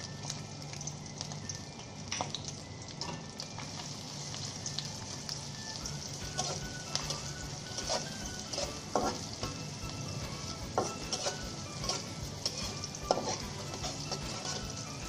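Sliced onions sizzling in hot oil in a metal pot, a steady frying hiss. A spatula scrapes and knocks against the pot as the onions are stirred, more often in the second half.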